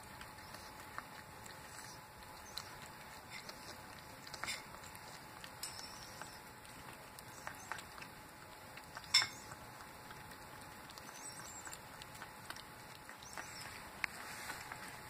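A cat eating from a bowl: faint, irregular small clicks and smacks of chewing and licking, with one sharper click about nine seconds in.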